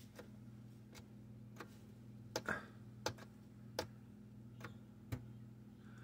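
Faint, irregular clicks, about nine of them, over a steady low hum from the refrigerator, while its repaired LED light board is slow to come on.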